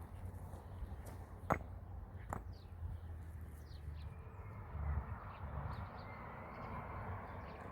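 Two sharp knocks about a second apart over a steady low rumble, with faint small bird chirps scattered throughout.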